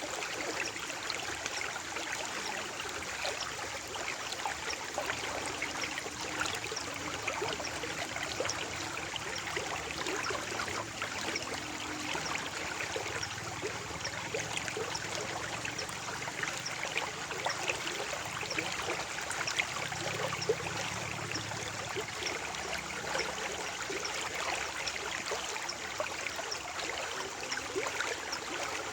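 Water flowing and trickling steadily over stones in a small stream, a continuous babbling with fine splashes.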